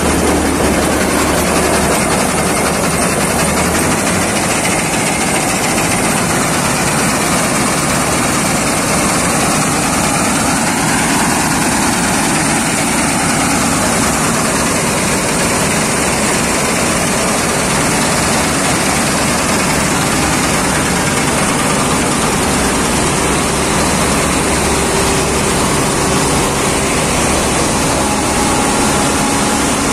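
Claas Mega 208 combine harvester running on a test run after repair, making a loud, steady mechanical noise.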